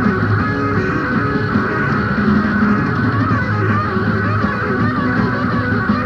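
Live rock band playing an instrumental passage: electric lead guitar lines bending and wavering over rhythm guitar, bass and drums.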